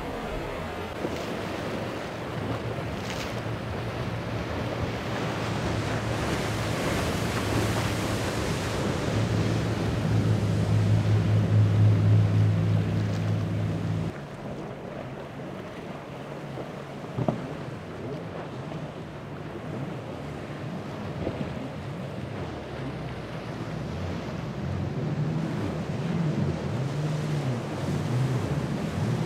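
Powerboat engines running through rough inlet water, a steady drone over the rush of waves and wind, loudest about ten to fourteen seconds in. It then cuts off sharply to quieter wind and surf, and near the end the drone of a Wellcraft Scarab's triple Mercury 400 Racing outboards builds.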